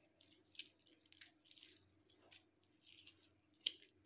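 Faint wet squelches and drips as a lemon half is squeezed by hand over a bowl of raw fish and spices, with one sharper click near the end.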